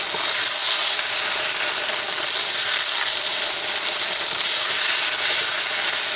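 Chicken pieces frying in oil and spice masala in a nonstick wok, a steady sizzle, while a wooden spatula stirs and scrapes through them. This is the bhuna stage, the chicken browning in the masala.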